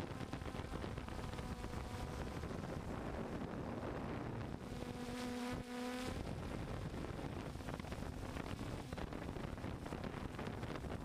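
DJI F550 hexacopter's six brushless motors and propellers buzzing steadily in flight, with wind rushing over the onboard microphone. The motor hum swells into a clearer pitched tone for a second or two about halfway through.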